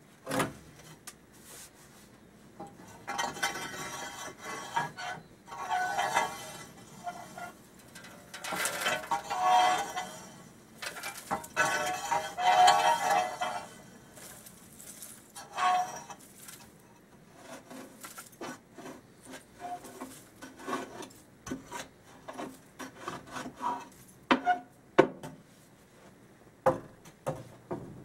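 Long-handled metal ash rake scraping ash out of the steel secondary combustion chamber of a downdraft gasification outdoor wood boiler, in irregular grating strokes of metal on metal. Sharp clinks and knocks of the tool against the chamber come near the end.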